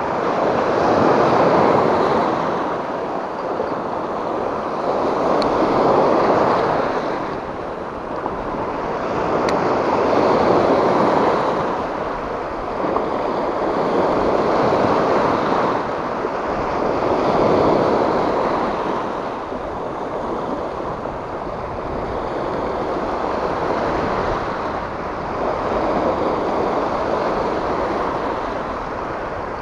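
Small sea waves breaking and washing over a rocky shore ledge, the hiss of surf swelling and fading every four seconds or so.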